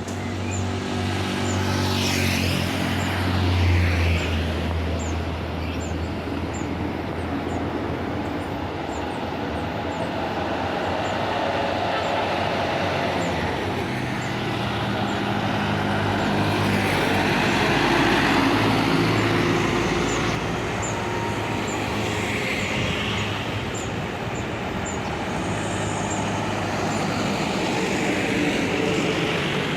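Road traffic passing close by, mostly large vehicles such as buses: engines and tyres rise and fade as each vehicle goes past, several times over, with a heavy engine drone near the start.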